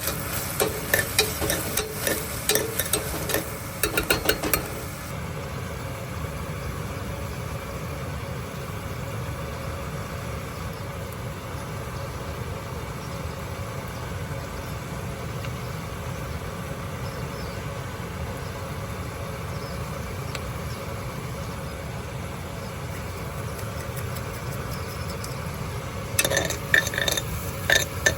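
Seasonings shaken and stirred into a cooking pot: quick clicks, taps and scrapes for the first few seconds and again near the end. In between there is a steady low hum.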